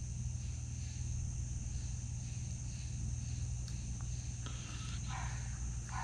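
Room tone: a steady low hum and a steady high whine, with two faint clicks around the middle as multimeter test probes are pressed against a switch's prongs. No continuity beep sounds, because the probes are not making proper contact.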